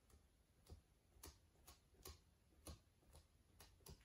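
Faint soft taps of a sponge dabbing acrylic paint onto a canvas board, about two a second at an uneven pace.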